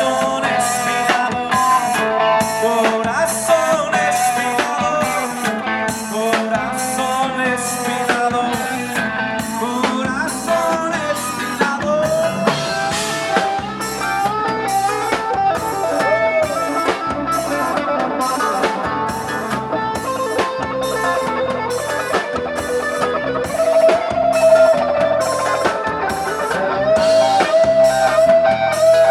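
Band music with no words: a guitar playing held, bending melody lines over a drum kit keeping a steady beat.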